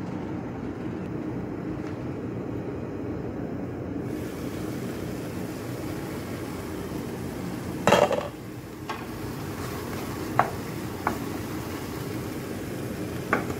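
Pot and wooden spoon being handled over a steady background hum: one loud clatter about eight seconds in, then a few short sharp knocks of the spoon against the non-stick pan as beef mince is stirred.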